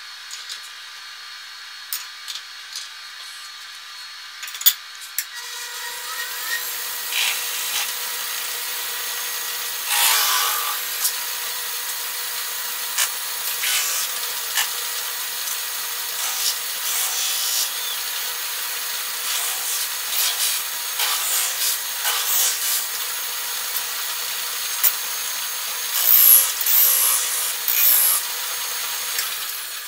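Lathe running while a metal-spinning tool is pressed against a thin 24-gauge brass banjo tone ring turning on it, rubbing and scraping the brass into shape. The sound gets louder about six seconds in, and a run of louder scrapes comes near the end.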